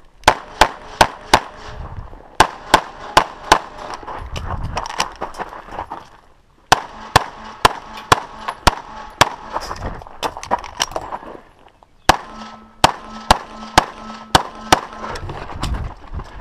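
A CZ 75 SP-01 9mm pistol is fired rapidly at close range, in quick strings of pairs with short pauses between strings. The shooting stops near the end.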